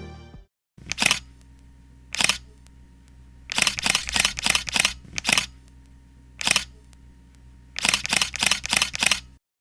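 Short sharp clicks, some single and some in quick runs of about six at roughly four a second, over a faint steady hum.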